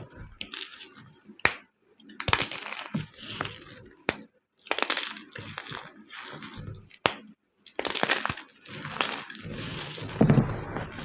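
Homemade gym chalk crunching and crumbling as it is crushed: a series of dry crackling bursts with sharp snaps between them, the heaviest crunch near the end.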